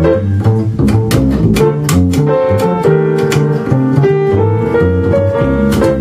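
Upright double bass played pizzicato in a jazz trio, a run of separate plucked low notes, with piano chords held above it.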